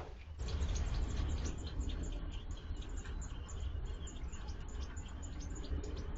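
Many short, high chirps in quick succession, most likely American robin nestlings peeping in the nest, over a steady low rumble.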